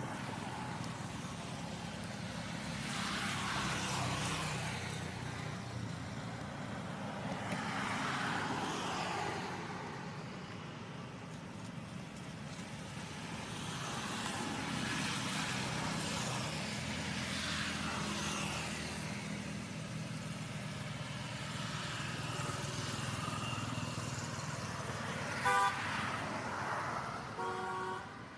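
Road traffic going by: vehicles swell and fade every few seconds over a steady low engine hum. Near the end a vehicle horn gives two short toots a couple of seconds apart.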